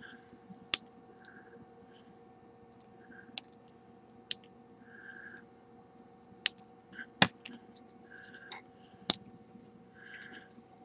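Scissors snipping hard plastic toy accessory parts off a sprue tree: about six sharp snaps a second or two apart, with light rustling of the plastic tree being handled between them.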